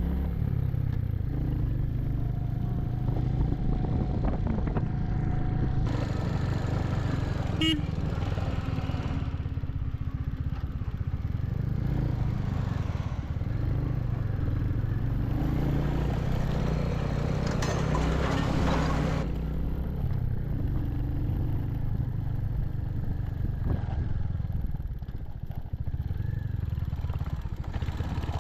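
Royal Enfield Hunter 350's single-cylinder engine running while the bike is ridden, its note rising and falling with the throttle, with occasional clatter from a rough road surface.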